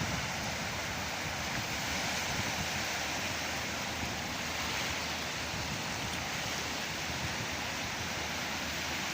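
Sea surf: a steady, even wash of breaking waves.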